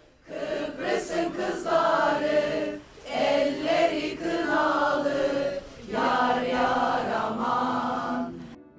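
A group of women singing together in a mixed crowd chorus, in sung phrases with short breaks about three and six seconds in.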